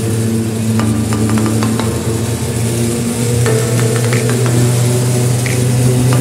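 Cable car running along its cable: a steady low mechanical hum with scattered clicks and rattles.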